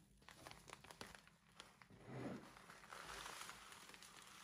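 Faint crinkling and small clicks of a plastic zip-top bag being handled and opened over a glass bowl, then a soft rustle from about three seconds in as the crushed biscuit crumbs begin to slide out of the bag.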